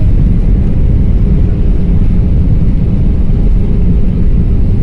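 Inside the cabin of a passenger jet rolling down the runway just after touchdown: a loud, steady low rumble of the engines and the wheels on the runway.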